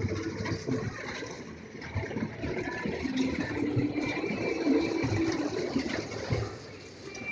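Kiddie train ride running on its track, a steady mechanical running noise amid the mixed din of a fairground crowd.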